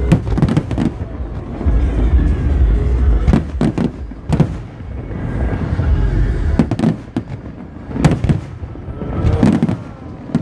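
Aerial fireworks bursting in clusters about every second or two, each burst a sharp bang followed by crackling, over a steady low rumble. Music plays underneath.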